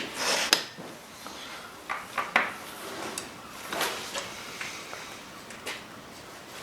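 Tools and bike parts being handled on a workshop bench: scattered clicks, knocks and scrapes, about half a dozen, spread across several seconds.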